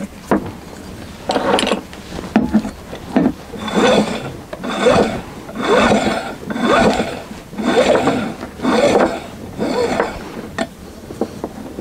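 Braided rope pulled through a double pulley block and dragged across a wooden tabletop while a davit lift tackle is reeved. It goes in a run of rubbing strokes, about one a second.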